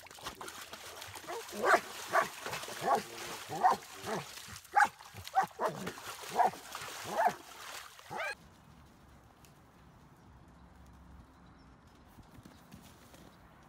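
A dog splashing and pawing in a muddy puddle, barking in short repeated barks about every half second to a second over the hiss of the water. About eight seconds in it cuts off suddenly to a quiet, even outdoor background.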